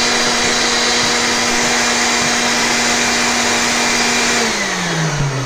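Electric blower motor running steadily, a rush of air with a steady hum. Near the end the hum drops in pitch as the motor winds down.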